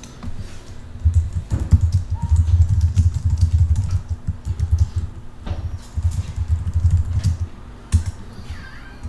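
Typing on a computer keyboard: rapid runs of key clicks with a short pause in the middle, then a single sharper key stroke near the end as the message is sent.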